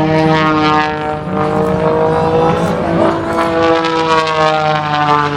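Propeller aircraft's piston engine running, a steady drone with many overtones whose pitch drifts only slightly.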